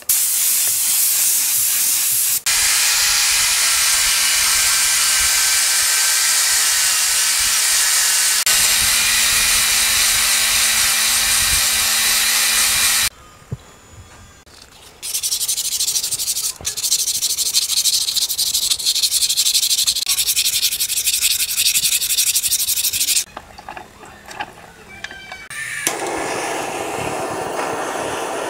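An aerosol spray can hissing as small parts are painted black. After a short pause about halfway through comes steady abrasive sanding on a small steel pin, with a different scraping sound near the end.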